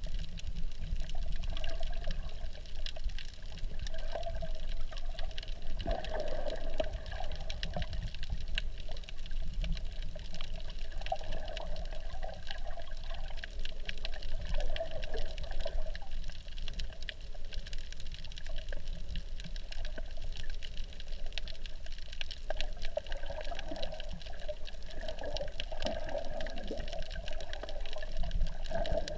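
Water noise heard underwater through a GoPro's waterproof housing: a muffled low rumble with a fine crackle of small clicks. Gurgling swells up now and then, most around six seconds in, in the middle, and near the end.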